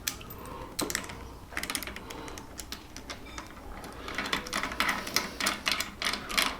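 Scattered light clicks and clinks of small metal parts and hand tools on a workbench, turning into a quicker run of clicks from about four seconds in.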